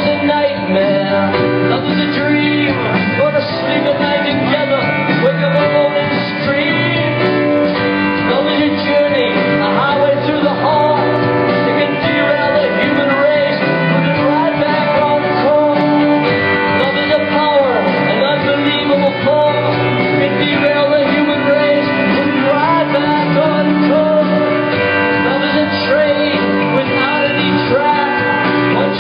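Live rock band playing loud and steady: electric guitar, bass and drums with a male lead singer, picked up from within the crowd by a phone's microphone.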